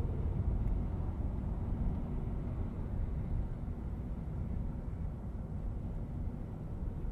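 Steady low road and engine rumble of a car driving at about 75 km/h, heard from a dashcam inside the cabin.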